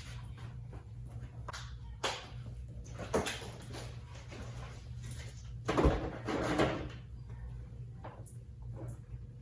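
Clunks and scraping of pressure-washer gear being handled and put away: a knock about 2 s in, another about 3 s in, and a louder run of knocking and scraping from about 6 to 7 s in, over a steady low hum.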